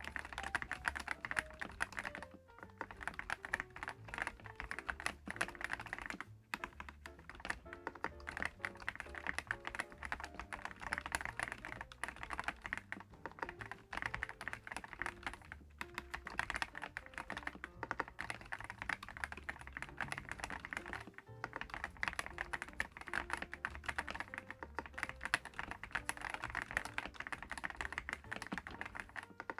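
Continuous fast typing on a DAREU EK75PRO gasket-mounted mechanical keyboard with Dream HiFi switches: a dense run of key clacks with a few short pauses, over background music.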